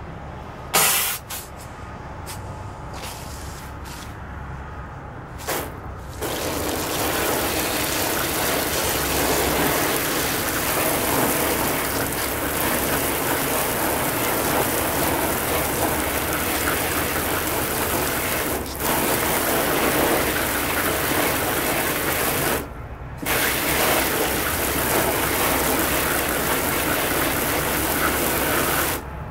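Garden hose spray nozzle spraying water onto a pile of freshly dug potatoes in a plastic tub. A couple of short squirts come first, then a steady hiss of spray with a brief break about two-thirds of the way through, stopping near the end.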